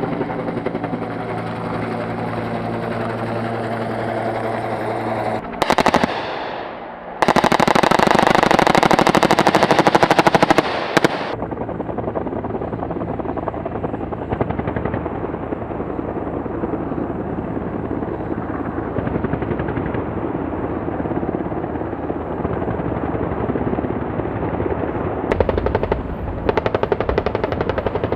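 AH-1S Cobra attack helicopter firing its turret gun in long rapid bursts, loudest from about seven to eleven seconds in and again near the end, with a quieter steady rattle of fire between them. Before the first burst, the helicopter's engine and rotor hum steadily.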